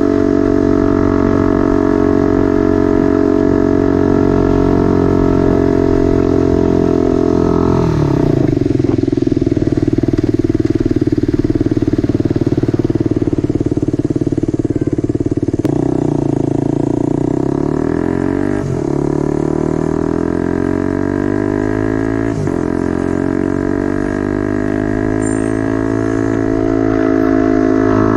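Motorcycle engine with a temporary exhaust running on the move, its pitch changing with the revs. The pitch falls about a third of the way in, then twice climbs and drops sharply, as with upshifts, and rises again near the end.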